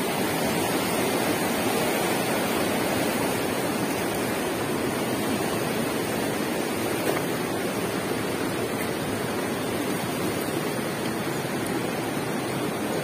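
Fast-flowing river running over rocks: a steady rush of water.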